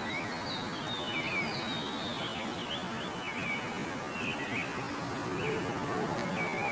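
Small birds chirping, short high calls repeated every second or so, over a steady background hiss.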